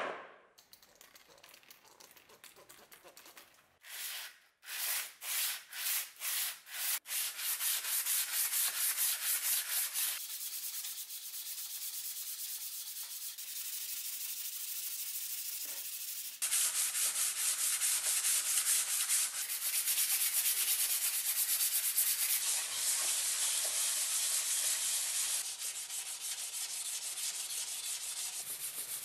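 Steel butcher-knife blade rubbed back and forth by hand on wet sandpaper, stripping the old black finish. A knock at the start, then slow separate strokes that soon become a fast, steady rhythm of scraping.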